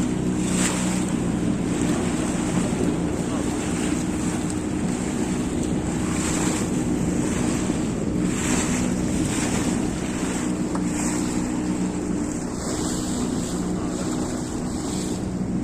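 Inflatable boat running at full speed: the outboard motor holds a steady hum while water splashes against the hull every second or two, with heavy wind noise on the microphone.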